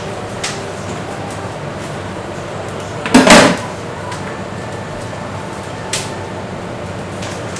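Steady restaurant-kitchen background noise, with one loud knock or clatter about three seconds in and a few faint clicks.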